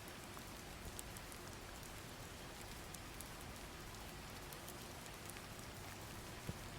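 Faint, steady rain ambience: an even hiss of rainfall with scattered drop ticks, one a little louder near the end.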